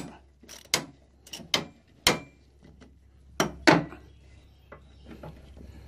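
Irregular sharp metallic clicks and knocks from a ratchet screwdriver and hands working the bolts on a steel mower deck, as the bolts are tightened back down. The loudest knocks come about two seconds in and about three and a half seconds in, with lighter ticks near the end.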